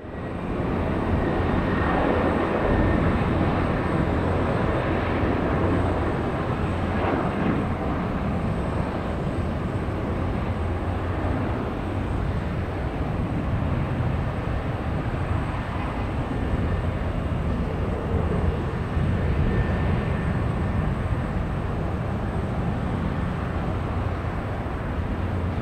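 Arriving jet airliner's engines: a steady, even rush of engine noise, with a faint high whine coming through now and then.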